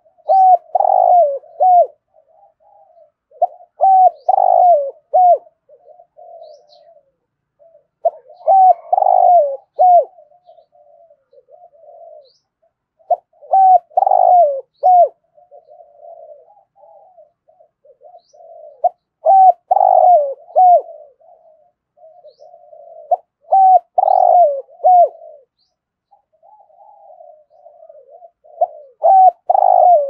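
Spotted dove cooing in a deep 'thổ' voice: a loud phrase of several coos with downward-dropping ends, repeated about every five seconds, with softer cooing between the phrases.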